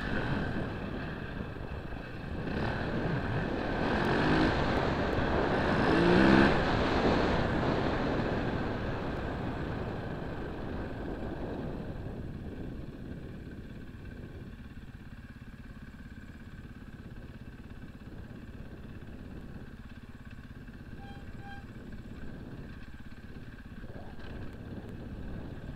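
Husaberg 450 FE's four-stroke single-cylinder engine revving hard up a steep climb, rising in pitch twice and loudest about six seconds in. It then eases off to quieter, lower running from about twelve seconds on.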